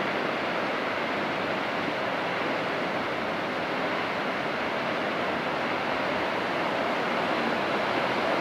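Steady rushing of sea water and waves, an even wash with no distinct engine note.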